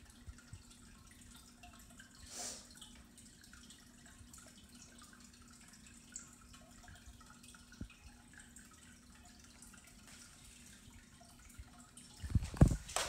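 Quiet room tone with a faint steady hum, a short breathy sound about two and a half seconds in and a small click later. Near the end come several loud, low thumps, typical of a handheld phone camera being moved.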